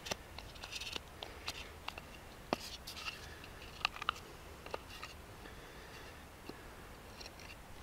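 Knife blade carving a notch into a wooden friction-fire hearth board: scattered short scrapes and sharp clicks as the blade cuts into the wood.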